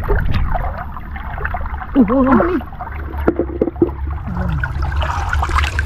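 Muddy floodwater gushing steadily out of a culvert pipe, with splashing from feet wading through the flow and a few short knocks around the middle.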